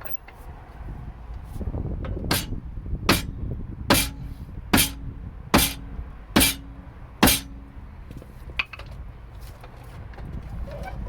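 Seven evenly spaced blows from the hide face of a mallet, about one every 0.8 s, each with a short metallic ring. The mallet is tapping a BMW E90 front shock absorber down into its hub carrier.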